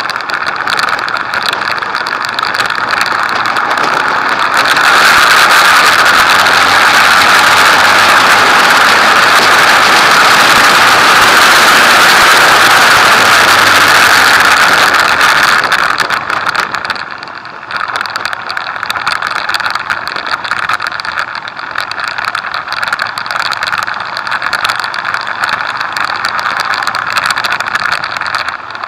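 Motorcycle riding at speed on a track, heard from a camera mounted on the bike: wind rush over the microphone with the engine running underneath. The noise grows louder about five seconds in and eases back after about fifteen seconds, dipping briefly near seventeen seconds.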